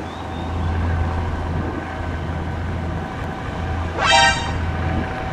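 Steady low hum under faint background music, with a short bright toot about four seconds in that slides up in pitch and then holds briefly.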